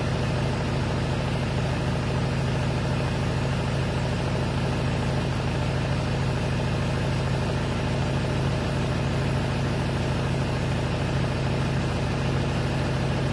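Vehicle engine idling: a steady low hum that does not change.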